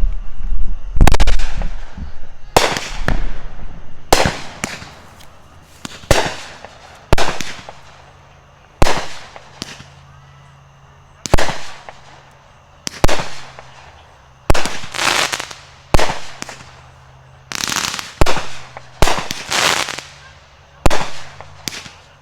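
Consumer aerial fireworks going off in a string of sharp bangs, roughly one every second or two, each followed by a fading crackle. The first bangs are the loudest, and the shots come closer together near the end.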